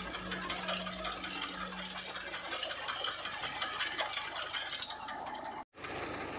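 Tractor-drawn potato digger running through the soil: a dense, even clatter of earth and potatoes shaking over its bars, with a steady low hum that stops about two and a half seconds in. The sound cuts out for an instant near the end.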